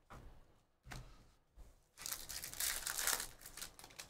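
Trading-card pack wrapper being crinkled and torn open: a few soft handling rustles, then about two seconds in a dense crinkling tear lasting nearly two seconds.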